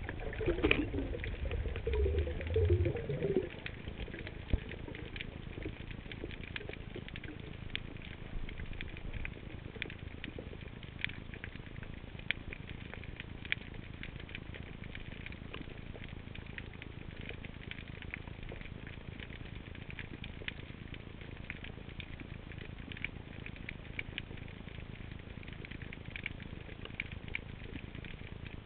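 Underwater reef ambience heard through an underwater camera: a steady crackle of tiny scattered clicks, typical of snapping shrimp on a rocky bottom. For roughly the first three seconds there is also louder low rumbling and a wavering whoosh.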